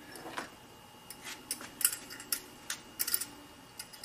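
A string of light, irregular plastic clicks and taps as an HID xenon bulb is handled and seated into a headlight housing.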